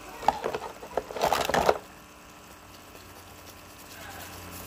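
Hands wetting and working something at a sink: a jumble of wet rubbing and handling noises, loudest just over a second in, that stops after about two seconds.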